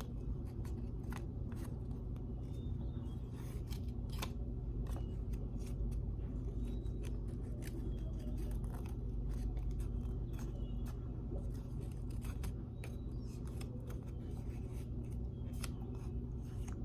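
Two paper strips being folded over each other and creased down, giving irregular rustles and light crisp clicks, over a steady low hum.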